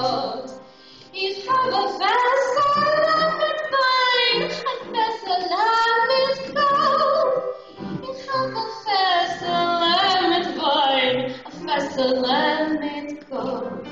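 A woman singing a Yiddish song into a microphone, in phrases of long held, wavering notes with short breaks between them.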